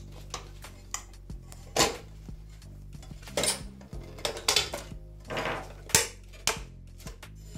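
An LCD panel and its sheet-metal mounting frame being handled, giving irregular metallic knocks, clatter and short scrapes as the panel is pressed and shifted into place. Soft background music runs underneath.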